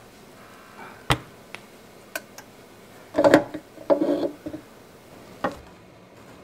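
Clicks and metallic clattering as the metal bread pan of a Zojirushi mini bread machine is handled by its wire handle and lifted out, with the loudest clatter in two bursts about midway.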